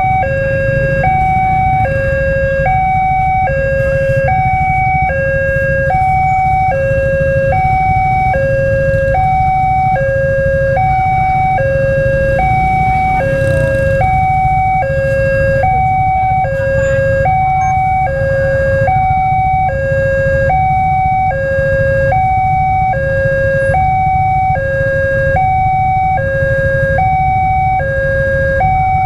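Railway level-crossing warning alarm sounding an electronic two-tone, high and low notes alternating at about one high-low cycle a second, the signal that a train is approaching and the crossing is closed. A steady low rumble lies beneath.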